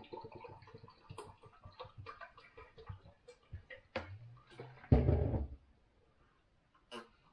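Water poured from a plastic bottle into a drinking glass: a run of small splashing ticks. About five seconds in there is a loud, short knock as the bottle is set down on the counter.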